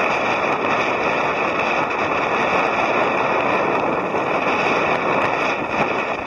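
Strong wind buffeting the microphone: a loud, steady rushing noise with no pauses.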